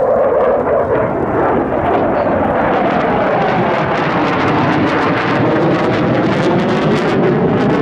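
JASDF F-4 Phantom fighter's twin J79 turbojets roaring loudly as it flies past, a steady jet rush with a crackle that grows stronger in the second half.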